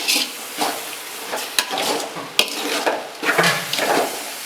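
Ladle stirring and scraping a frying onion, tomato and dried red chilli masala in a large pan, with sizzling, repeated scraping strokes and a few sharp knocks of the ladle on the pan. The masala is fully sautéed.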